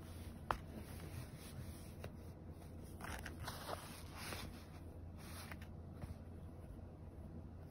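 Faint scratching and rustling as a cat paws and claws at a black strap and denim fabric. A single sharp click comes about half a second in, and the rustling is busier from about three to four and a half seconds.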